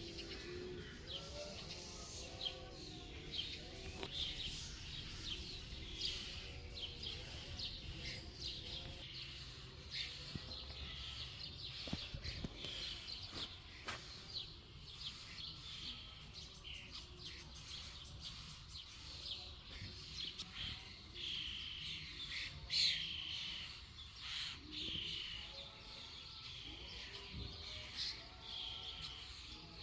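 Songbirds chirping and singing, many short high calls and trills overlapping, with a few louder calls a little past the middle.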